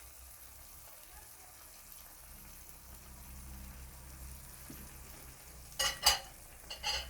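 Mussels in tomato sauce sizzling faintly in a pan on the stove, a steady soft hiss. Near the end come a few sharp clatters of cookware.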